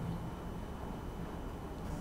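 Quiet room tone: a steady low hum and hiss with a faint steady high tone, and a brief soft rustle near the end.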